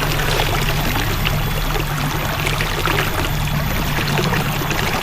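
River water flowing, a steady rush with many small splashes.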